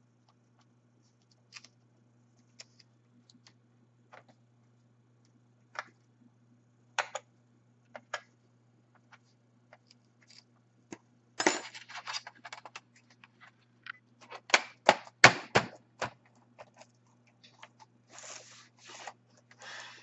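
Small scattered clicks and light scrapes of tweezers and fingers working a laptop keyboard ribbon cable into its connector. Past the middle comes a denser run of louder plastic clicks and knocks as the keyboard is set into the palm rest and pressed down, then soft rubbing of hands on the keys.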